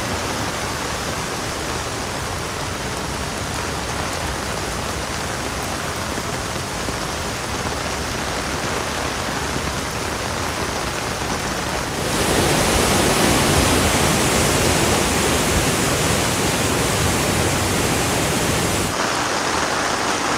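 Torrential rain pouring down onto a road, a steady hiss of water. It gets louder about twelve seconds in and drops back just before the end.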